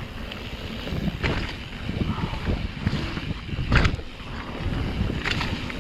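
Wind rushing over the microphone with the rumble of bike tyres on a wet dirt trail. There are sharp rattles of the bike over bumps about a second in, near four seconds and again near the end.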